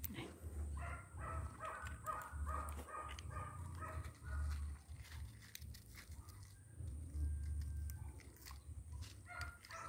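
Pruning shears clicking and snipping at a luffa stem, with low handling rumble. About a second in, an animal calls in a quick run of short pitched notes for about three seconds.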